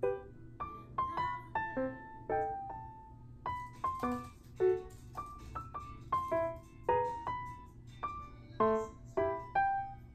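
Background music of gentle piano notes.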